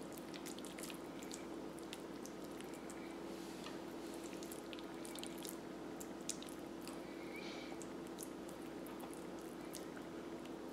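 Faint wet squishing and small sticky clicks of hands pressing and packing minced smoked salmon mixed with spicy mayo around an avocado half, over a steady low hum.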